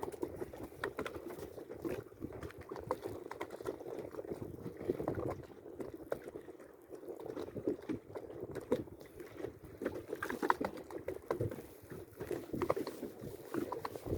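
Water sloshing and lapping around a boat, with scattered small knocks and clicks; the sound dips briefly about halfway through.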